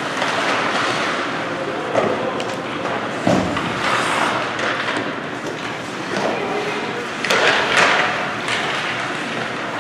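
Ice hockey play echoing in an indoor rink: scattered knocks and thumps of puck, sticks and bodies against the boards over steady arena noise. There is a deep thud about three seconds in and a cluster of knocks around seven to eight seconds in.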